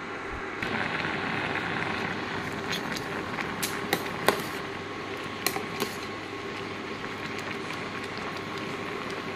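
Water boiling vigorously in a steel pot of potato and pumpkin pieces, a steady bubbling hiss with a faint hum underneath. A metal spoon clinks against the pot several times around the middle as the pieces are stirred.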